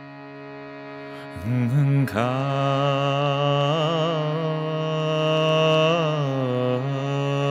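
Overtone singing over a steady shruti box drone. A low voice slides in about a second and a half in and holds its note while a high, whistling overtone wavers above it; near the end the voice steps down in pitch.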